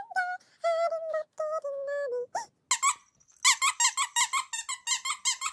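Baby's squeaky toy squeezed over and over, a quick string of high squeaks about five a second, starting about halfway through. Before that come a few short held notes.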